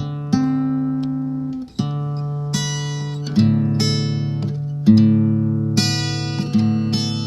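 Acoustic guitar music: chords strummed and left ringing, a new strum every second or so.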